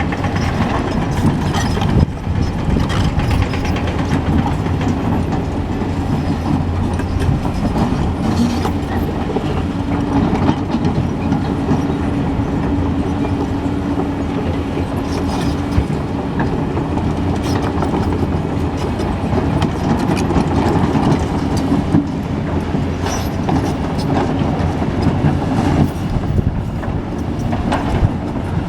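Caterpillar hydraulic excavator working in a mine: its diesel engine runs steadily under load, with scattered sharp metal knocks. About a third of the way in, a steady hum rises over the engine for several seconds.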